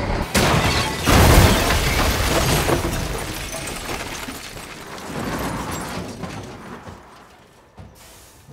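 A tanker truck crashing through a farmyard: a sudden loud crash with smashing and crunching, peaking about a second in and rumbling away over several seconds, with a second smaller surge of crashing around five seconds in.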